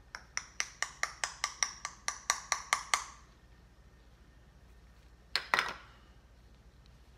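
Spatula tapping on the rim of a small glass jar, about a dozen quick ringing taps at roughly four a second that grow louder, knocking hyaluronic acid powder off into the water. A shorter knock on the glass follows about five seconds in.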